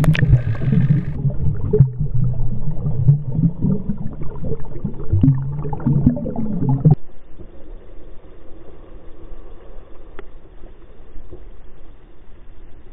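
Water gurgling and rushing as heard by a camera held underwater, a muffled low rumble with crackles and pops. About seven seconds in it cuts off suddenly to a quieter, steady noise as the picture moves to the water's surface.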